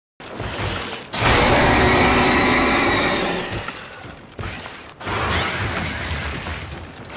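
Fan-made kaiju roar sound effects. A long, loud pitched roar begins about a second in and fades away over about four seconds, then a second, shorter roar with a sliding pitch follows near the end.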